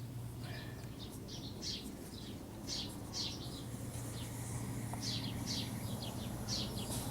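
Birds chirping repeatedly in short calls, over a low steady hum.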